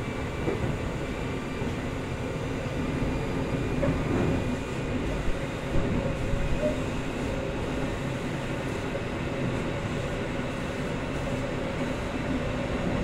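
Keikyu 800 series electric train (Mitsubishi field-chopper control) running at speed, heard from on board: a steady whine from the motors and running gear over the rumble of wheels on rail. A few sharper knocks come about halfway through.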